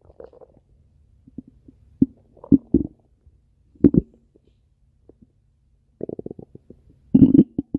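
Stomach growling: scattered short gurgles, then a quick run of rapid gurgling pulses about six seconds in and the loudest gurgle near the end.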